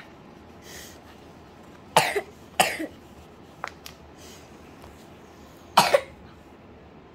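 A young girl coughing: a short cough about two seconds in, another half a second later, and a double cough near the end. A couple of faint clicks fall between them.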